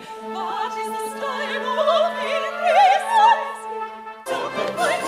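Operatic singing with strong vibrato over a small theatre orchestra holding a sustained low note. About four seconds in it cuts to fuller, louder orchestral music.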